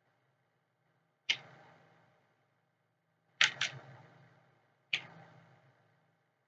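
Four separate keystrokes on a computer keyboard, each a sharp clack that dies away within a second: one about a second in, two in quick succession near the middle, and a last one about five seconds in.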